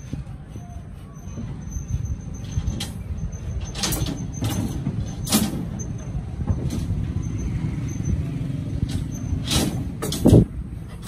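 Steel reinforcing bars clanking and scraping against each other as they are handled in the beam formwork: a string of sharp metallic clanks, the loudest near the end, over a steady low rumble.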